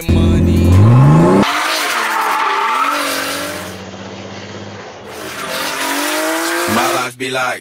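BMW E36 coupe drifting: the engine revs up sharply for about a second and a half, then the tyres squeal through a long slide with the engine held high. The squeal fades in the middle and builds again near the end.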